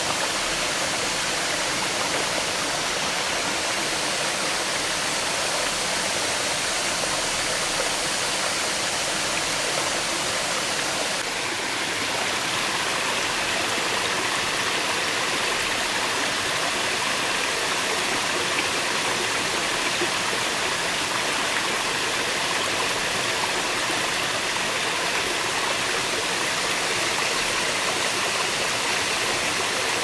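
Steady rushing water of a waterfall, an even hiss with no other sounds standing out. About eleven seconds in it dips briefly and shifts slightly in tone, then carries on.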